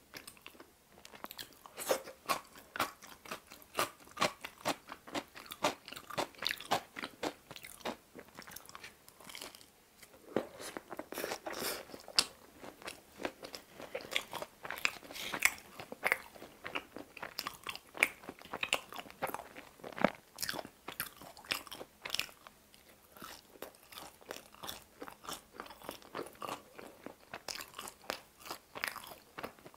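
A person chewing and biting into pizza close to the microphone: a dense, irregular run of crunching and chewing clicks, several a second.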